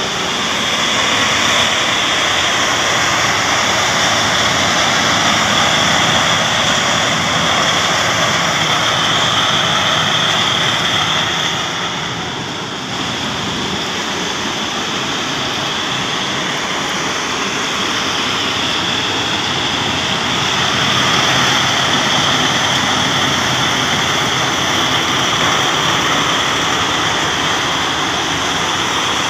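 Jaw crusher plant running under load, with its belt conveyors: a loud, steady din of machinery and crushed stone, dipping briefly about twelve seconds in.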